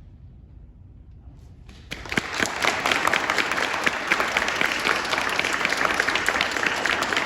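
Audience applauding, starting suddenly about two seconds in as a dense run of many hand claps, after a near-quiet stretch.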